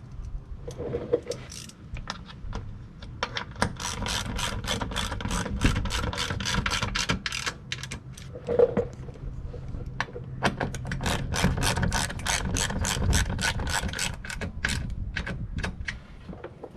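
Hand socket ratchet clicking fast as fasteners are driven in, in two long runs with a short pause between them, about six clicks a second.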